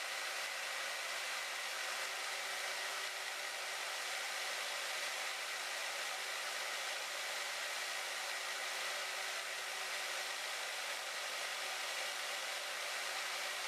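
Harbor Freight band saw running steadily partway through a slow cut, a continuous even whir with a faint high tone.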